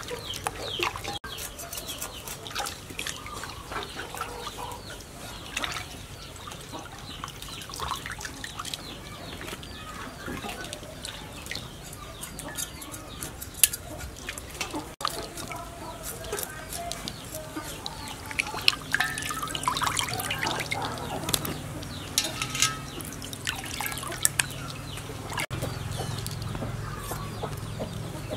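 Water splashing and dripping as whole fish are rinsed by hand in a water-filled steel basin.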